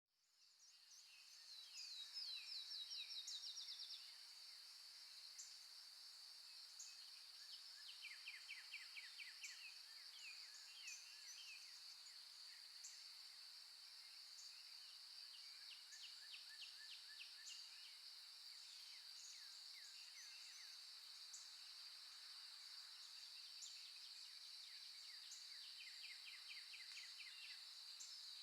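Faint birdsong from a nature recording: several rapid trills of short falling notes and scattered single chirps, over a steady high-pitched drone. It fades in over the first two seconds.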